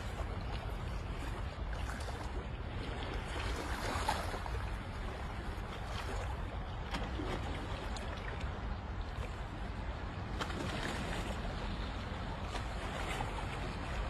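Sea water lapping and sloshing against large shoreline boulders, a steady wash with small splashes swelling now and then, most clearly about four seconds in, over a constant low rumble.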